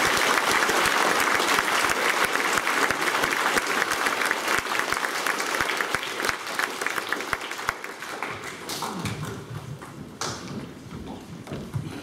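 A hall full of schoolchildren clapping. The dense applause is loudest at first and dies away after about eight seconds, leaving faint shuffling and murmur.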